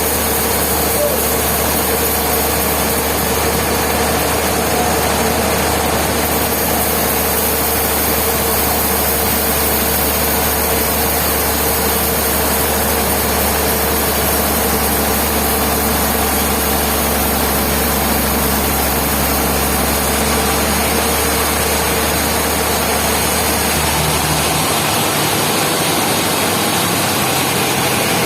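Heavy sawmill machinery running steadily with a constant low engine drone; the low hum drops away near the end.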